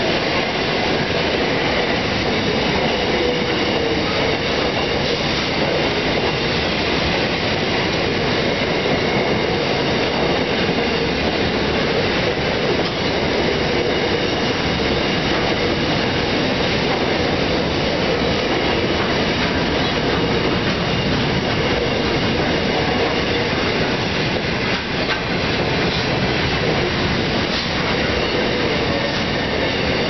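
Grain train hopper wagons rolling past: a steady, loud rumble of steel wheels on the rails with clickety-clack over the joints and faint wheel squeal on the curve.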